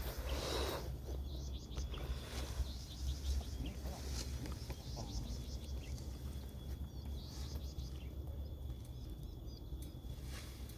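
Open-field ambience: scattered short bird chirps over a steady low rumble, with a brief rustle at the start.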